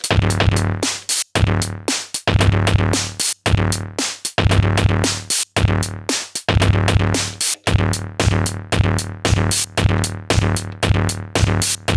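Elektron Digitone FM synthesizer playing a drum-machine pattern: a dense electronic beat of deep kick and bass pulses under crisp hi-hat-like hits. The low part comes in right at the start, and the beat breaks off briefly about every two seconds.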